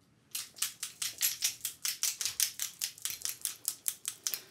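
Fast, even clapping, about six claps a second, starting a moment in and stopping just before the end.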